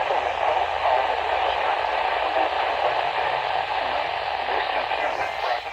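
Weather radio receiver on weak reception: a steady hiss of static, thinning out near the end.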